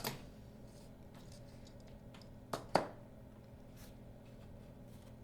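Faint handling of curtain traverse track parts during belt removal, with two sharp clicks about two and a half seconds in, over a low steady hum.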